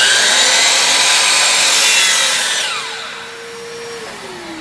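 Miter saw with a red blade cutting a 45-degree miter through a mango-wood board, loud for the first two and a half seconds. As the cut ends the motor runs free with a steady whine, which falls in pitch near the end as it spins down.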